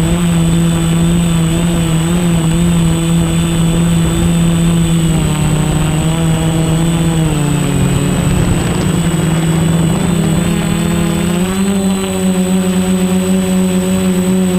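Quadcopter motors and propellers buzzing steadily as it flies. The pitch sags about a third of the way in, is lowest just past the middle, and steps back up about three quarters through, following the throttle.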